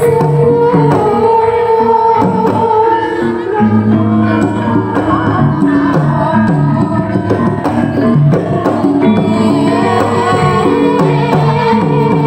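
Javanese gamelan playing: bronze metallophones ring out held, stepping notes over a steady beat of kendang hand-drum strokes.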